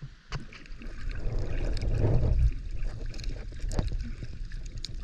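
Water sloshing and splashing around the camera as a snorkeller swims, with a low rumble that swells about two seconds in and scattered crackles.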